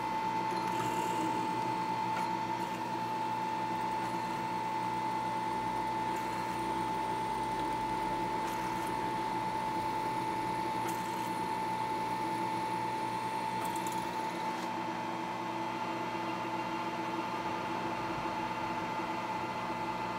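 Vertical milling machine spindle running with a steady high whine while a long drill bit is fed slowly through a metal bar, cutting a hole.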